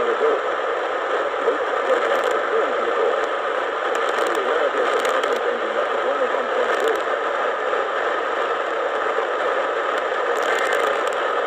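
Weak radio reception of an Emergency Alert System flash flood warning: steady hiss and crackle of static with the announcer's voice buried under it, nearly inaudible. Near the end, a short burst of faint two-tone data chirps begins: the alert's end-of-message code.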